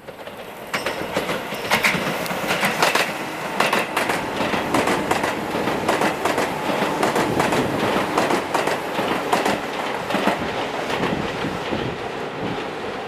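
Electric commuter train passing on the Tobu Skytree Line: a loud steady rush with wheels clicking over rail joints, coming up about a second in.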